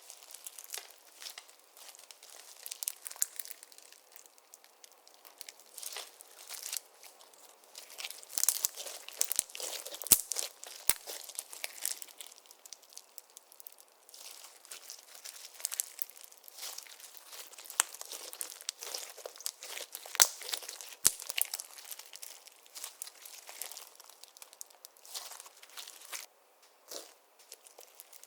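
Clear slime being worked and stretched, giving irregular sticky crackles and small pops, busier in a couple of stretches.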